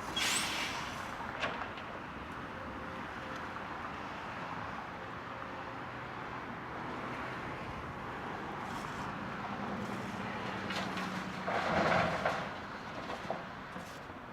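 Heavy diesel construction machinery, an excavator and a dump truck, running steadily. A sharp noise comes at the start, a click follows about a second and a half in, and a louder rush of noise lasting about a second comes near the end, followed by a few small knocks.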